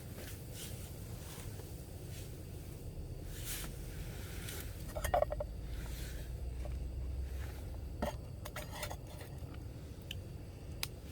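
Camp cookware being handled: scattered light clinks and scrapes of cups and utensils, with a brief ringing clink about halfway through, over a low steady rumble.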